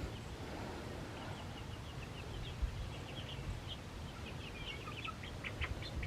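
Young chickens, about eight weeks old, peeping and chirping softly: short high calls, few at first and coming more often in the second half.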